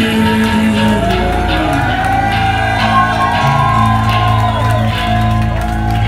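Live band playing loud: electric guitar, bass and drums, with shouts and whoops over the music.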